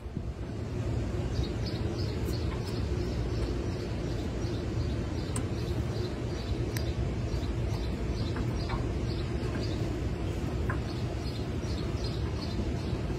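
1964 VW Beetle's air-cooled flat-four engine idling steadily while its carburetor is being adjusted. A bird chirps repeatedly, a few times a second, over the engine.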